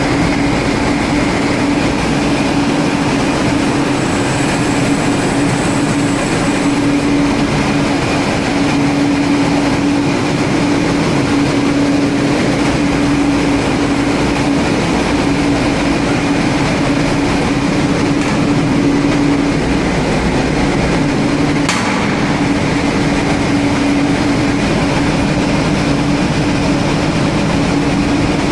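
Loud, steady machinery din of a dual-fuel diesel-electric LNG carrier's engine room, with a constant hum running through it. A single sharp click sounds about three quarters of the way in.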